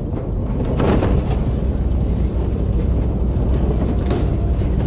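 Heavy machinery, a crane's engine, running with a steady low rumble, with scattered metallic creaks and clanks, the loudest about a second in.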